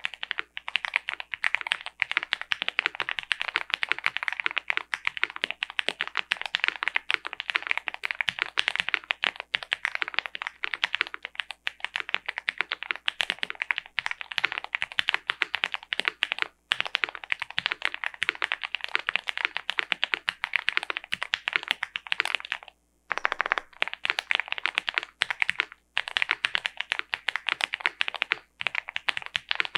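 Fast, continuous typing on a custom aluminium Owlab Mr. Suit mechanical keyboard with lubed Gateron Box Ink Black linear switches, a POM plate, all foams installed and GMK keycaps. The keystrokes come several a second, with a brief pause about three quarters of the way through.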